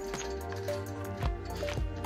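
Background music with a steady beat of about two strikes a second over held notes.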